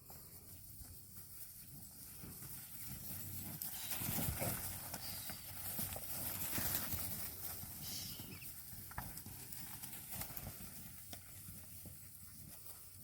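Hoofbeats of a mob of livestock on the move, irregular knocking over low rumble, building about four seconds in and easing off toward the end.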